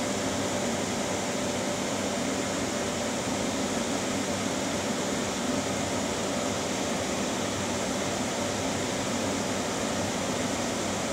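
C6 Corvette electric coolant fan running steadily at 75% PWM duty cycle: an even rush of air with a faint constant hum.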